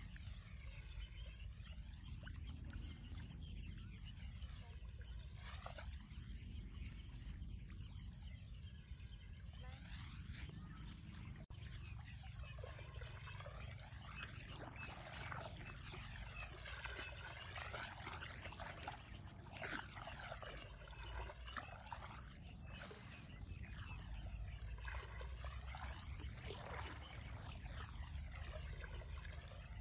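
Shallow water swishing and sloshing around a person's legs as she wades through it, in an even, continuous run with no sharp splashes.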